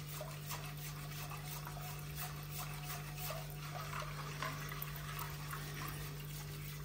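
Metal whisk stirring a thin apple-molasses mixture in a stainless steel pot: soft, irregular liquid sloshing with faint light scrapes, over a steady low hum.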